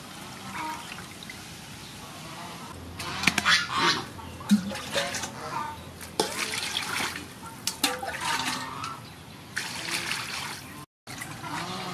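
Water splashing in an aluminium basin as whole fish are washed by hand, then water poured from a bowl over them, in several bursts. Birds call now and then in the background.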